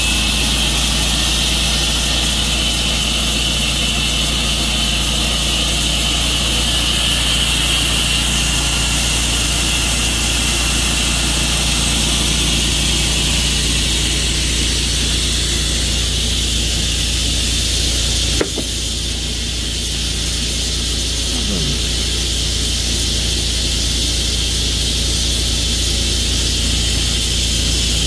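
Sawmill running steadily under load as it cuts a maple log, a continuous engine hum with a hissing blade noise over it. A sharp click comes about two-thirds of the way through, after which it runs slightly quieter.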